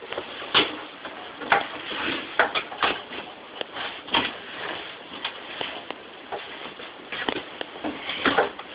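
Irregular clicks, knocks and rustles of objects being handled and moved about, coming at uneven intervals over a low background hiss.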